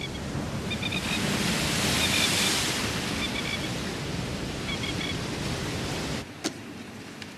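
Steady wash of ocean surf, with small clusters of short high chirps about once a second. The surf cuts off abruptly about six seconds in, followed by a single click.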